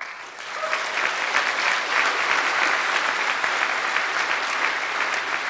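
Audience applauding: dense clapping that builds over the first second, then holds steady.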